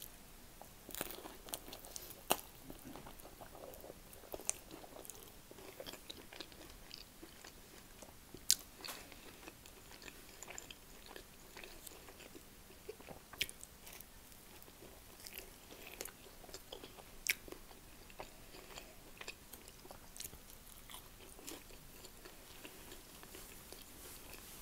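Close-up chewing and mouth sounds of a person eating a Yorkshire pudding topped with mashed potato and swede: soft, wet chewing with scattered sharp clicks, a few of them louder.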